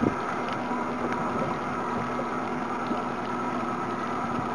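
Motorboat engine running steadily, a constant hum with a hiss of wind and water behind it.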